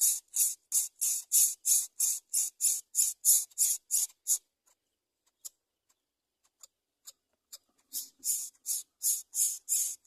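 Greater coucal nestlings giving rasping, hiss-like begging calls in a quick series of about three a second. The calls stop about halfway through, a few faint ticks follow, and the series starts again near the end.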